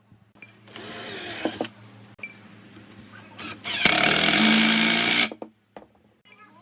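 A power tool run in two short bursts: a quieter one about a second in and a louder one with a steady motor whine about four seconds in, lasting about a second and a half.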